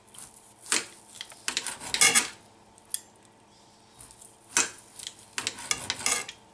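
Metal knife sawing through corned beef and scraping the ceramic plate beneath, with metal tongs clicking against the plate: several short scraping strokes, the loudest about two seconds in and another cluster near the end.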